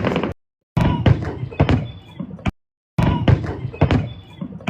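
Fireworks going off in a rapid string of sharp bangs and crackles. The sound cuts out completely twice for under half a second.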